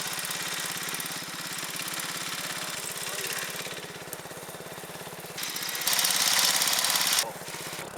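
Massey Ferguson lawn tractor's small engine running with a steady fast beat. A louder rushing noise joins it for about a second and a half near the end, then stops abruptly.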